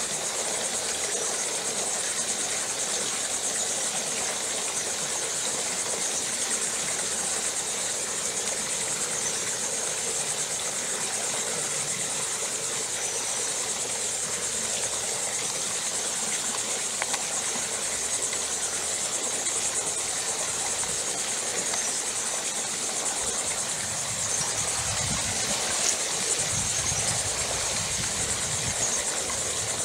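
Steady insect chorus: a constant high-pitched drone over an even hiss, with a few low rumbles near the end.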